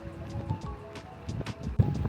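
Background music: a few held melody notes with light ticking percussion. A low thump comes near the end, as wind and road noise rise again.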